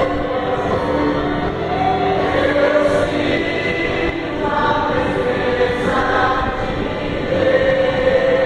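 A man singing a gospel hymn into a microphone through the church's loudspeakers, in long held notes.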